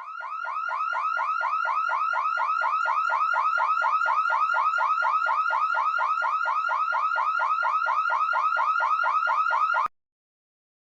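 Electronic alarm tone chirping rapidly, about five chirps a second, each chirp rising and falling in pitch. It fades in over the first second or so, holds steady, then cuts off suddenly near the end.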